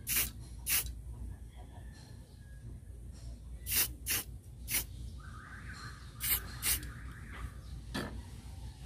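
Short hissing bursts of spray paint, about eight in all, some coming in quick pairs, as the homemade tool is painted.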